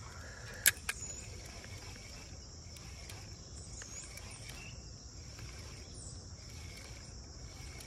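Quiet creekside ambience: insects trilling steadily at a high pitch over a low, even rush of flowing water, with a single sharp click a little under a second in.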